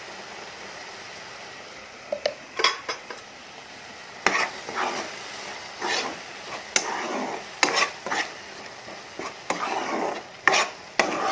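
A spoon scraping and stirring in a kadai of frying onions with a steady sizzle underneath. The scraping strokes begin about two seconds in and come irregularly, roughly one a second.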